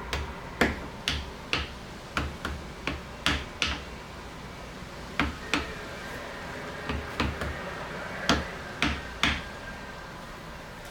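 A series of irregular sharp clicks and taps, some in quick pairs, as parts around a car battery are pushed and fitted into place by hand.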